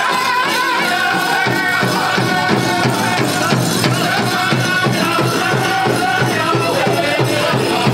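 Pow wow drum group singing a high, wavering song over a steady, even beat on the big drum, with a jingling rattle over it.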